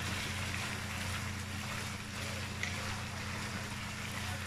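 Meat and onions sizzling as they stir-fry in a wok, stirred with a plastic spatula that knocks once against the pan a little past halfway, over a steady low hum.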